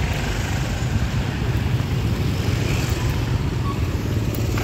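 Steady low rumble of motor vehicle engines and road noise.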